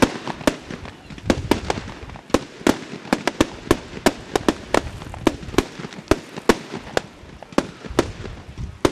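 Fireworks going off in a rapid, irregular string of sharp bangs, about three a second.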